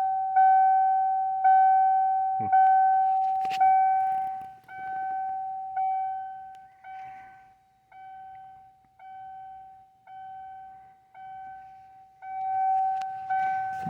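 1994 Ford Bronco's dashboard warning chime dinging about once a second, sounding with the key on and the engine not yet started. It drops quieter a few seconds in and comes back louder near the end, with a couple of knocks in the first few seconds.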